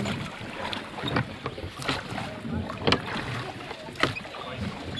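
Oars working in the oarlocks of a small rowboat being rowed: sharp knocks about once a second over a steady hiss of water.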